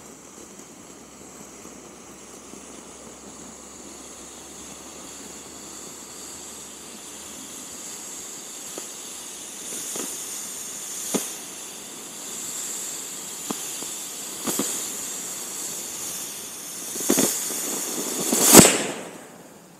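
Homemade potassium nitrate–sugar smoke charge with 10% paraffin burning through its nozzle with a steady hiss that slowly grows louder, broken by several sharp pops. Near the end it surges to its loudest and then cuts off suddenly.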